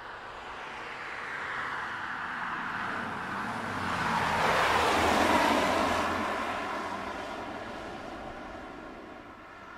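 A 2015 Mazda 6 passing by on the road, its engine and tyre noise growing louder, peaking about five seconds in, then fading as it drives away.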